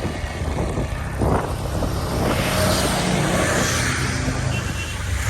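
Motor vehicle running on the road, heard from on board: a steady low engine rumble with rushing road and traffic noise that swells about two seconds in.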